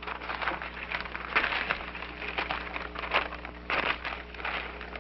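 Paper rustling and crinkling as a folded sheet is handled and unfolded, with a few louder rustles.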